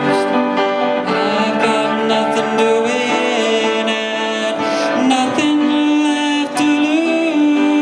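Music from a song performance: several sustained notes held together in changing chords.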